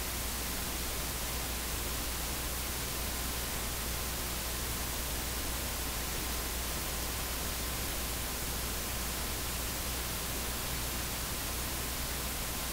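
Steady hiss with a low hum underneath and a faint steady tone. There is no speech, only the background noise of the recording.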